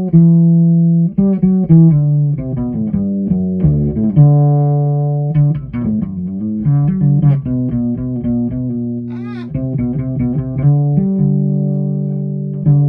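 Ibanez SRH505F fretless acoustic-electric bass played solo: a run of plucked notes, some sliding into pitch, with a brief high wavering note about nine seconds in and long sustained low notes near the end.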